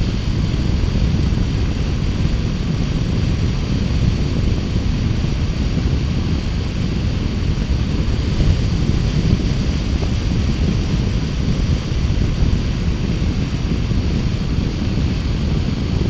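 Steady low rumble of a 2018 Triumph Bonneville T120's parallel-twin engine cruising at constant speed, mixed with wind rushing over the microphone.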